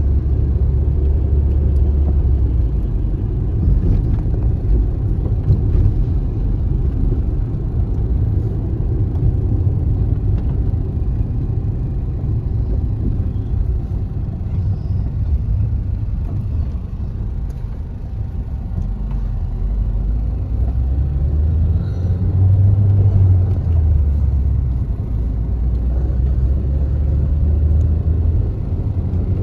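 Car engine and road noise heard from inside the moving car's cabin: a steady low rumble that eases off a little past the middle and builds again toward the end.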